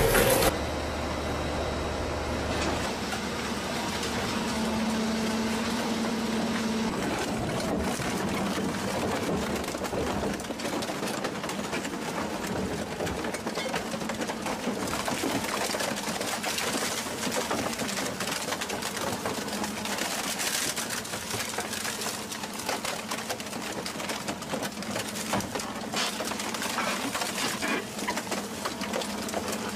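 Shredding machine running, with a dense, steady rattle and crackle.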